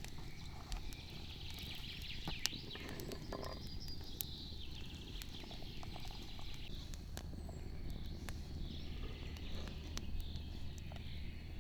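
Wood fire and embers crackling, with irregular sharp pops and one louder snap about two and a half seconds in.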